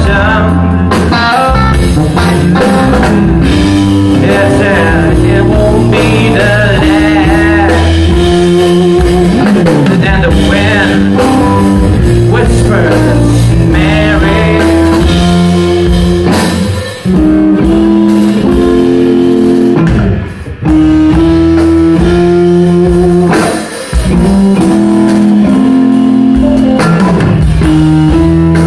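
Live band playing loud blues-rock: two electric guitars through amplifiers over a drum kit. The band cuts out briefly three times in the second half.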